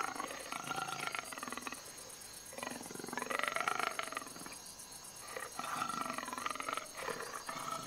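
Three drawn-out, rasping calls from a large carnivore, each a second or two long, about two seconds apart.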